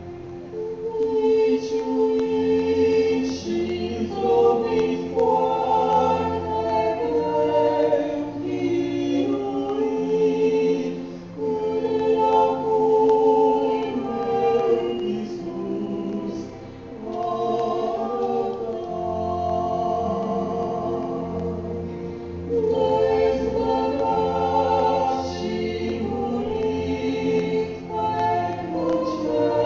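Mixed church choir of men's and women's voices singing a hymn in Romanian in sustained chords, phrase by phrase, with brief breaks between phrases.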